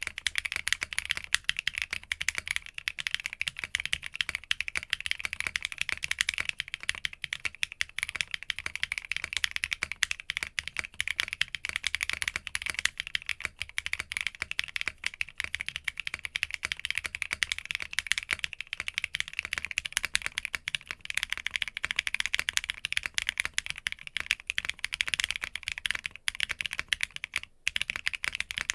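Continuous fast typing on an Arc60 60% mechanical keyboard with a polycarbonate (PC) plate and Roselles switches: a dense, even stream of key clacks. About a second before the end it breaks off briefly and resumes on the same board with a POM plate.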